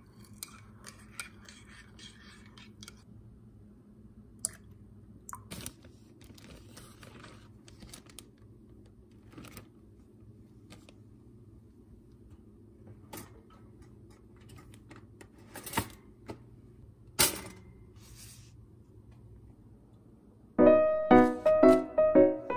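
A metal spoon stirs and clinks in a ceramic coffee mug, followed by scattered small kitchen clicks and clatter, with two sharper clicks a little past the middle. Piano music comes in near the end and is the loudest sound.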